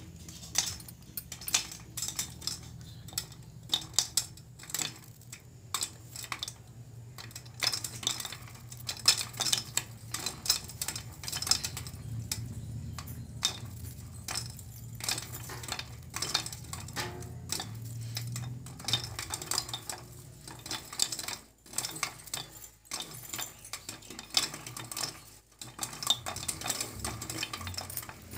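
Popcorn kernels popping inside a closed aluminium pressure cooker: irregular sharp pops and taps against the metal pot and lid, over a low steady hum.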